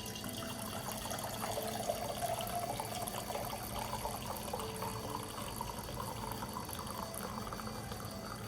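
Water running steadily, with quiet background music beneath it.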